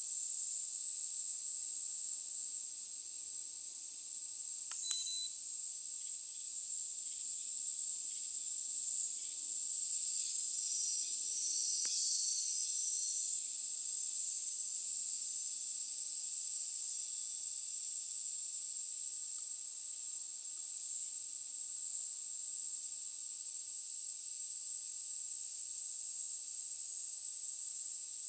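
Steady, high-pitched buzzing of insects such as crickets, swelling a little around twelve seconds in. A short high beep sounds about five seconds in.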